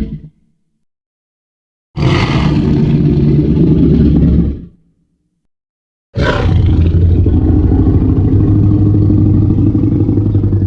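Monster roar sound effect, a blend of the 2014 Godzilla roar and the Jurassic Park Tyrannosaurus roar. A loud roar ends in the first moment. After a gap comes a roar of about three seconds, then after another gap a longer roar of about five seconds. Each roar starts with a sharp, high-pitched attack and settles into a deep, rumbling sustain.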